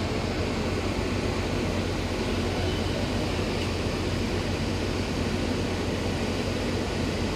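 Steady low machinery drone from a docked ro-ro cargo ship, an even hum that does not change.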